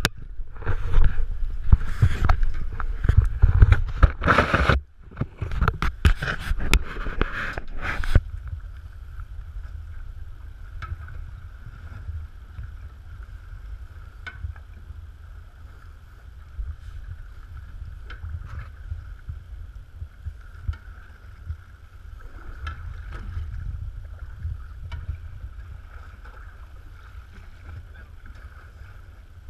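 Wind buffeting the action-camera microphone in loud, uneven gusts for about the first eight seconds, then the steady low rumble of a small boat at sea, with a faint steady hum and a few light clicks.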